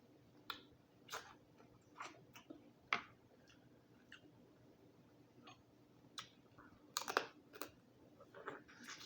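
Close-up eating sounds of a person working through a boiled Dungeness crab: irregular sharp clicks and crackles with wet chewing and sucking, a few seconds apart, with a denser cluster about seven seconds in.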